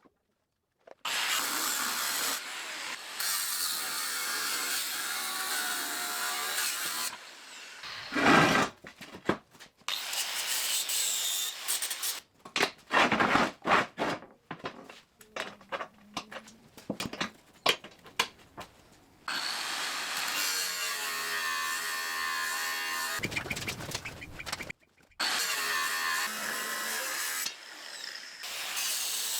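Power tools working thick steel in a string of short takes that start and stop abruptly: steady grinding-and-cutting stretches, with a run of irregular sharp noises around the middle.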